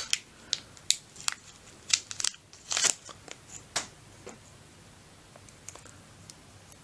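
Packaging being opened by hand to get at a set of flat tension wrenches: a run of irregular crinkles, crackles and sharp rustles for about the first four seconds, then only a few faint handling ticks.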